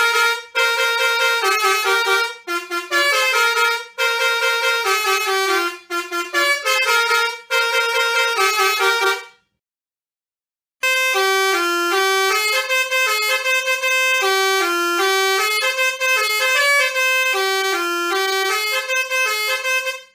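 Indonesian 'telolet' bus horn, a multi-tone musical horn, playing a melody of short stepped notes over and over. There are two runs, split by a second and a half of dead silence a little before the middle.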